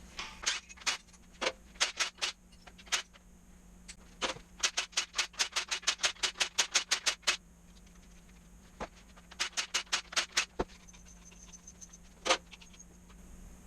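Hand ratchet wrench clicking in quick even runs of about five or six clicks a second, the valve body bolts on a 4L80E automatic transmission being backed out, with a few single clicks between runs.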